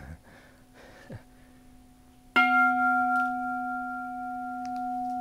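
Bronze Japanese Buddhist temple bell struck once with its striker about two seconds in, then ringing on in a long steady tone with a low hum and clear higher overtones, dying away only slowly.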